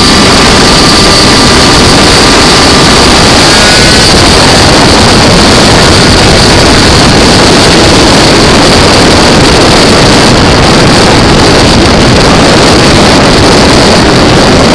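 Malossi 77cc-kitted Piaggio Zip two-stroke scooter engine running steadily at speed, heard very loud from on board with wind noise on the microphone.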